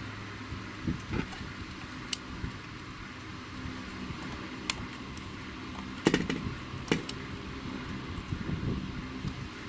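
Scattered light clicks and taps of fingers working at an opened PAT tester's circuit board and plastic case, the loudest cluster about six seconds in, over a steady low hum.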